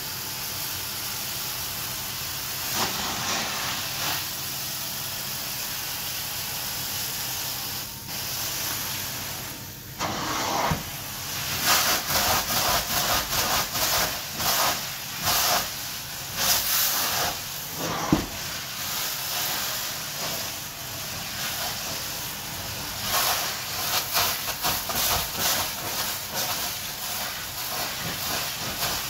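Hot-water carpet extraction wand spraying and vacuuming carpet, giving a steady hiss. From about ten seconds in, the hiss comes in quick, uneven surges.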